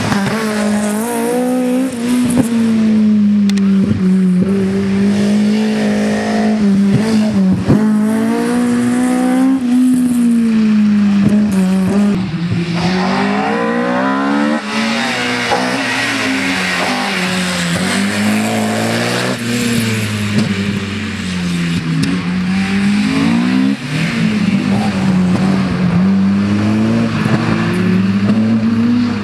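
Modified Group H slalom cars, a Ford Escort Mk1 and then an Opel Kadett C coupé, driven hard through the cones. The engines are held high in the revs, their pitch rising and falling with each turn, with some tyre squeal.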